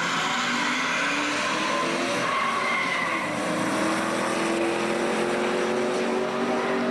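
Pickup truck engines revving hard with tyres spinning and squealing on a drag strip. The engine note climbs slowly through the second half.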